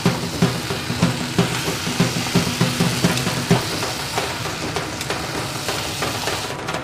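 Mixed vegetables sizzling in oil in a steel pan while a metal spatula stirs them, scraping and knocking against the pan about twice a second. Just before the end the sizzling gives way to music with drums.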